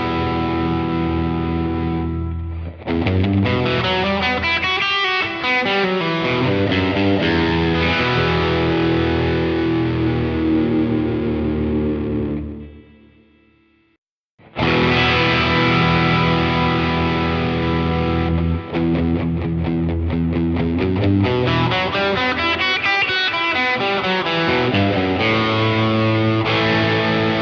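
Overdriven electric guitar: a Fender Stratocaster with noiseless pickups, through overdrive pedals and a Blues Senior tube combo, recorded via a Universal Audio OX Box with 1x12 speaker emulation and a factory delay preset. Chords and single-note phrases ring out with echo repeats. The sound fades out about 13 seconds in and the playing starts again a second or so later.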